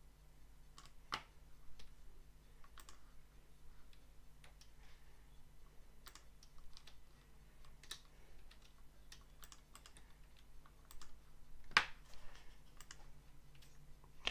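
Scattered, irregular clicks of a computer mouse and keyboard, with one louder click near the end. A low steady hum runs underneath.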